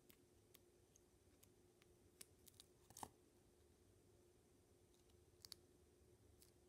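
Very faint ticks and crackles of die-cut washi tape being peeled off its roll and handled between fingertips, with a sharper crackle about halfway through and a quick double click near the end, over a faint steady hum.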